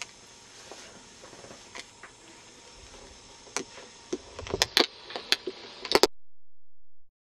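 Handling noise from parts and tools on a workbench: scattered light clicks and taps, coming louder and closer together in the last couple of seconds, then cutting off abruptly about six seconds in.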